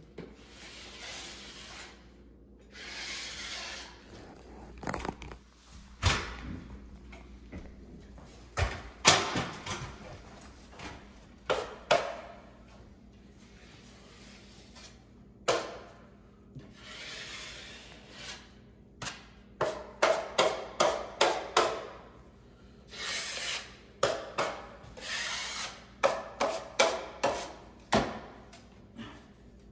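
Drywall knife scraping along a wall corner in strokes of a second or two, between runs of quick sharp clicks and taps as the blade is scraped and knocked against the edge of the mud pan.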